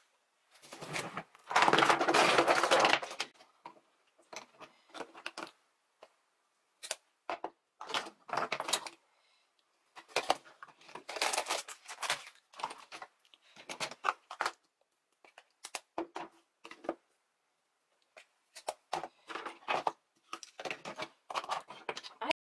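Makeup products being handled and set down on a countertop: irregular clicks and clatter of plastic compacts, tubes and pencils knocking together, with a longer, louder rattling stretch about two seconds in.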